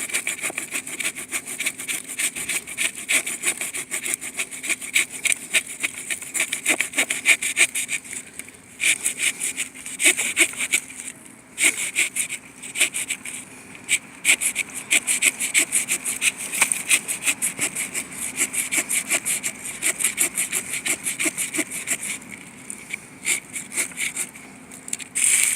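Pocket-knife folding saw blade, from a Victorinox RangerWood 55, cutting through a log of fairly hard wood. The strokes come quickly and steadily back and forth, with a few short pauses.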